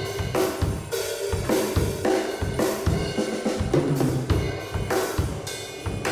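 Pearl Roadshow five-piece acoustic drum kit played in a steady groove: kick drum, snare, hi-hat and cymbals, with a brief ringing pitched drum hit about four seconds in.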